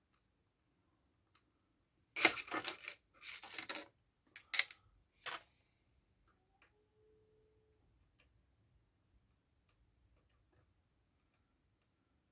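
Small plastic tools and iPhone parts being handled in close-up: about two seconds in, a couple of seconds of rustling and scraping, then a few light clicks and taps, and after that only faint ticks.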